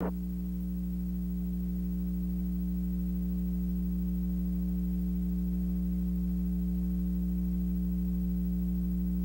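Steady electrical hum with several fixed tones layered above it, unchanging in pitch and slowly getting a little louder. It is typical of mains hum on the audio track of an old videotape transfer.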